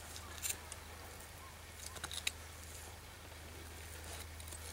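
Quiet butchering sounds from a knife cutting the backstrap out of a deer carcass: faint rustling with a few short clicks and scrapes, sharpest about half a second in and around two seconds in, over a steady low hum.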